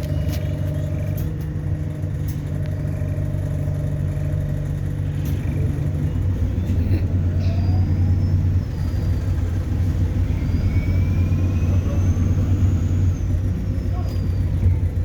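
ADL Enviro400 Hybrid double-decker bus on the move, heard from inside the cabin: a steady low drivetrain rumble, with a faint high whine that rises and then falls in the second half.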